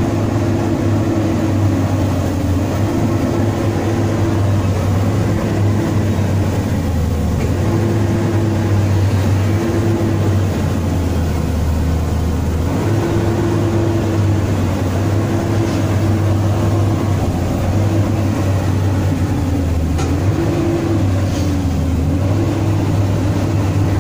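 JCB JS205 excavator's diesel engine running at raised revs, heard from inside the cab. Its note dips and recovers several times as the machine is worked. This is a test run after the excavator was sunk in peat mud.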